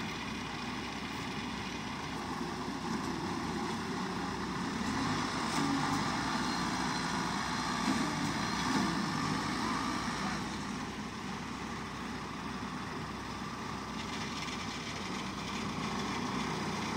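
Engines of a rice combine harvester stuck in mud and of the tractors chained up to tow it, running steadily.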